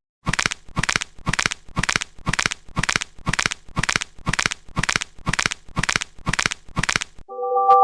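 Short bursts of crackly noise repeating evenly about twice a second, cutting off abruptly near the end, when a held chord of several steady tones begins.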